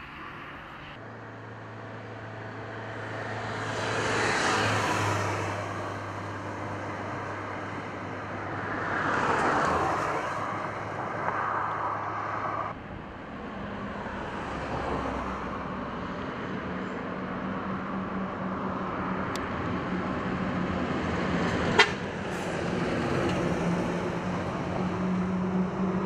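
Road traffic: vehicles passing one after another, each swelling and fading, then a truck's engine running steadily as a truck and a car drive along the road. One sharp click comes about three-quarters of the way through.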